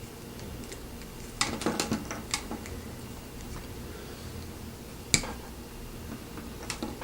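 Small plastic clicks and rattles of drinking straws being pushed into plastic connectors: a quick cluster of clicks about a second and a half in, then one sharp click a little past five seconds.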